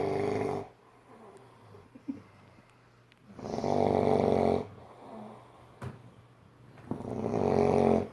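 A person snoring very loudly in deep sleep: three long, heavy snores about every three and a half seconds, each lasting a second or so, the first one tailing off just after the start.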